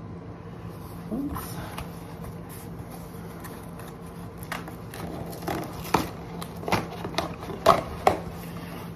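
Hands working at a cardboard shipping box to get it open: scattered scrapes, taps and crackles of cardboard and packing tape, more frequent in the second half, over a steady low hum.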